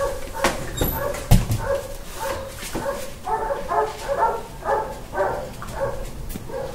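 Dogs barking and yipping in short repeated calls, thickest in a quick run about halfway through, with a couple of sharp knocks in the first second and a half.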